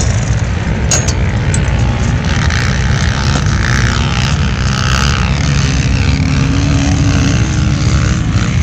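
Engines of off-road vehicles climbing a sand dune, heard at a distance over a steady low rumble. A faint engine note rises slightly about two-thirds of the way in.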